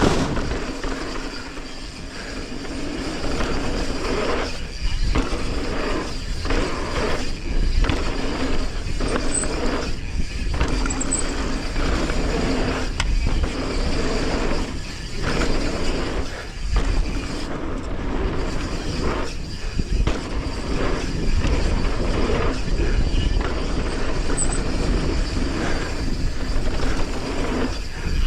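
Mountain bike, a 2022 Commencal Clash, riding fast down a dirt trail: a steady rush of wind buffeting the camera microphone over the tyres on dirt, with the bike's chain and frame knocking and rattling over bumps.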